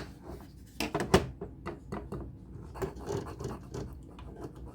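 Handling noise from folding knives being picked up and turned over: a string of light clicks and taps with scratchy rubbing, the sharpest clicks at the very start and about a second in.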